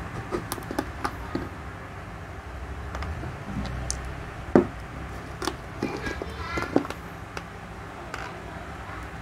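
Scattered clicks and knocks of a plastic motorcycle tail-light housing being handled and pried apart, the loudest knock about halfway through, with a brief creak of plastic a little later.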